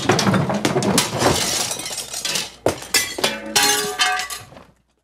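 A crash of breaking glass: a run of shattering impacts and clattering over several seconds, with a few ringing pitched tones near the end, cutting off abruptly.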